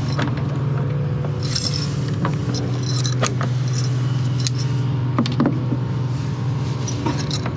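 Stainless-steel backstay hardware clinking and tapping as the turnbuckle and clevis pin are worked free at the chainplate: a scatter of short metallic clicks at irregular intervals. A steady low motor-like hum runs underneath.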